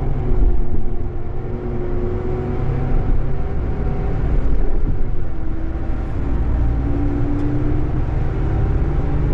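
Scania K420EB coach heard from inside the passenger cabin while under way: a steady low rumble of engine and road with a humming engine note that drifts up and down in pitch.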